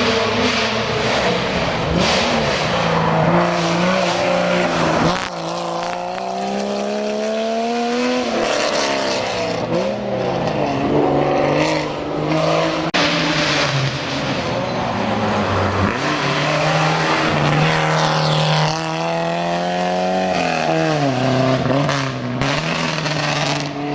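Rally car engine revving hard under acceleration, its pitch climbing and dropping back several times as the car goes through the gears and lifts off.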